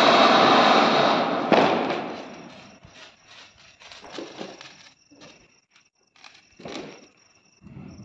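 Flower pot (ground fountain) firework hissing loudly as it sprays sparks, with a sharp crack about a second and a half in, then dying away over the next second as it burns out. Faint scattered crackles and pops follow.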